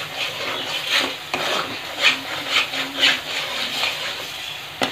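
Metal spatula scraping and stirring a thick spice paste in a kadai, in repeated strokes, over a low sizzle of the paste frying in oil until the oil separates. A sharp knock near the end.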